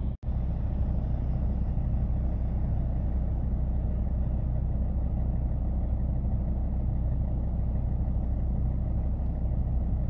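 Steady low engine hum and cabin drone heard from inside a car, even in pitch and level throughout, with a brief drop to silence just after the start.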